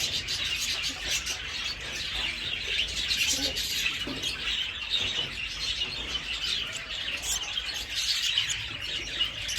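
Many small aviary birds chirping and chattering together, a dense, continuous twitter.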